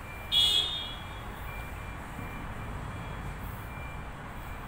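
A sharp metallic clink that rings briefly about half a second in, over a steady low workshop rumble.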